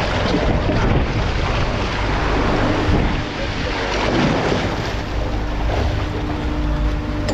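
Wind buffeting the microphone over the wash and splash of sea water churning behind the boat, with a faint steady hum from the boat's machinery.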